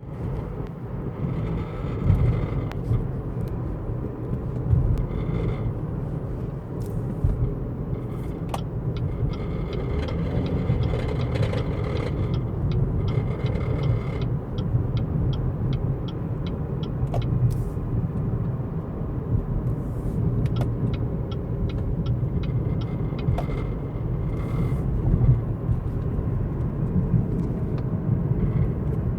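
A car running with a steady low rumble. Over it, a high squeak comes and goes, and runs of regular ticks, about two a second, last a few seconds at a time. This is the odd noise the car is making; its cause is not known.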